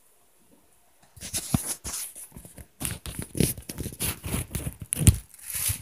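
Loud rustling and crinkling with irregular sharp knocks, starting about a second in after near silence.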